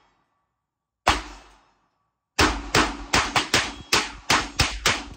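Gunshots from a Glock 42 .380 pistol: a single shot about a second in, then a quick string of rapid-fire shots from about halfway through.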